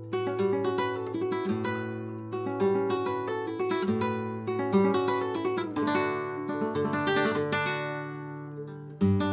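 Flamenco guitar playing a taranta falseta: a run of fingerpicked melody notes over ringing bass notes, with a loud strummed chord near the end.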